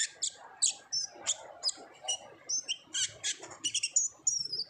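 Kolibri ninja (van Hasselt's sunbird) singing: a series of sharp, high chirps about two a second, quickening near the end into a fast run of chirps and short whistled glides.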